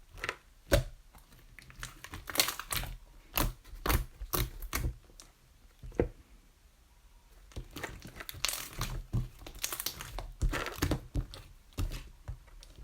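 Three-colour slime being squeezed and stretched by hand, making irregular clusters of crackling, popping clicks, with a quieter pause about halfway through.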